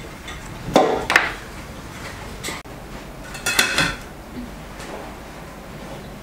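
A knife knocking twice on a bamboo cutting board as small limes are cut, then a short clatter of dishes with a ringing note about three and a half seconds in.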